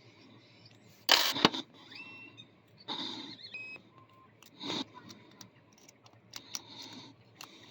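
Small scattered clicks and scrapes of a pick and tension wrench working the pins inside a cheap Hyper Tough 40 mm padlock, as the picker hunts for the sweet spot. A louder rustle about a second in, and a few short noisy puffs.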